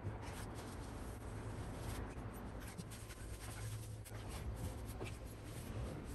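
A sponge rubbed back and forth over window glass: soft, uneven scrubbing strokes.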